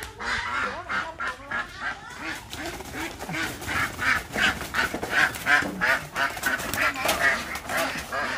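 A flock of domestic ducks quacking, many short calls overlapping several times a second without a break.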